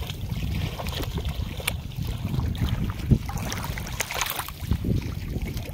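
Wind buffeting the microphone in a steady low rumble, with a few sharp knocks and light splashes of water around fish in a wicker basket.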